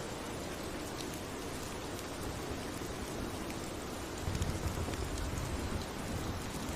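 Steady rain falling, with scattered drops ticking, and a brief low rumble of distant thunder about four seconds in.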